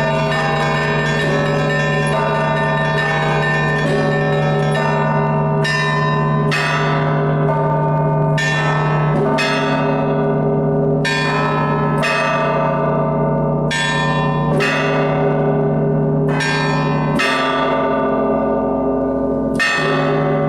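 A set of Russian Orthodox church bells being rung by one ringer in a continuous peal. A low bell's hum sounds steadily beneath many overlapping bell tones. From about a quarter of the way in, louder strikes come about once a second.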